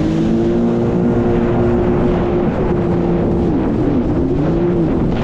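Jet ski engine running at speed, its pitch steady for a couple of seconds and then wavering up and down, over a steady rushing noise.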